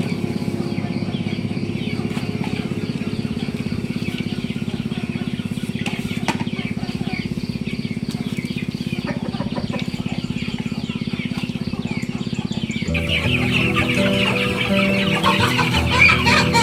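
Chickens clucking over background music; about 13 seconds in the music changes to a tune with distinct held notes and the clucking gets louder.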